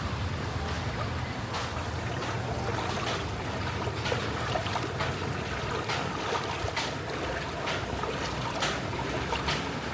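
Floodwater sloshing and washing along a flooded street, over a low steady engine hum, with scattered short sharp splashes.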